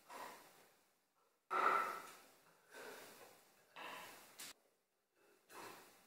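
A screwdriver prying the wooden lid off a vintage coffee grinder's box: the wood creaks and scrapes in about five short, sharp bursts. The loudest comes about a second and a half in, and there is a sharp click near the end.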